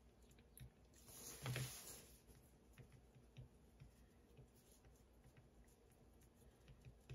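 Near silence with faint light taps and scratches of a heated wax stylus dabbing and drawing into wax on a small card. One brief, louder rustle comes about a second and a half in.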